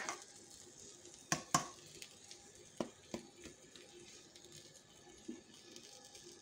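A few sharp clicks of a metal ladle knocking against an aluminium cooking pot as it is lifted out and set down: two louder clicks about a second and a half in, then a couple of fainter taps, over a quiet faint background.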